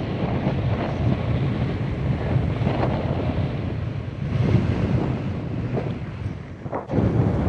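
Airflow buffeting a handheld camera's microphone during a tandem paraglider flight: a steady, low rushing wind noise that dips briefly near the end.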